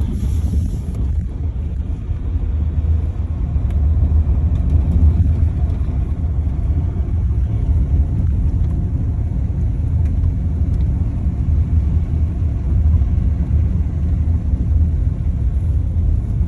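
Steady low rumble of tyres and suspension on a dirt road, heard from inside the cabin of a Rivian R1T electric pickup, with no engine note; it grows a little louder about four seconds in.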